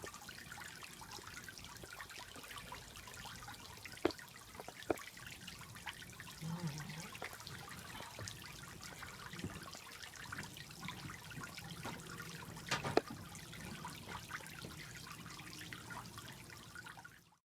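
Water trickling steadily from a small pond filter fountain into a pool, with a few sharp little ticks and drips along the way; it cuts off suddenly near the end.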